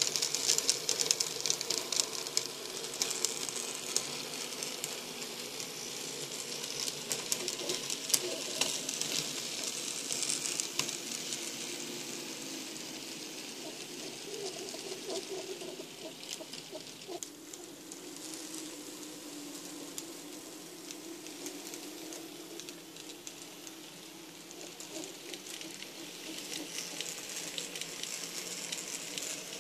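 N scale model freight train running past on the track: a dense fine clatter of tiny metal wheels on the rails over a low electric motor hum. Louder for the first ten seconds or so, softer in the middle, and picking up again near the end.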